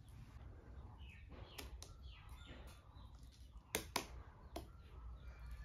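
Quiet room with faint bird chirps in the background. A few sharp clicks and knocks come close together about four seconds in, from a flat bamboo tray being handled.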